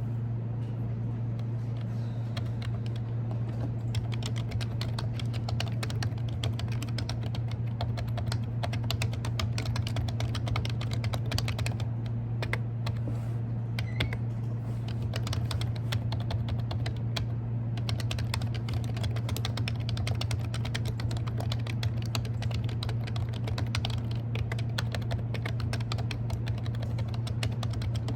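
Continuous fast typing on a computer keyboard, a dense, irregular run of key clicks, over a steady low hum.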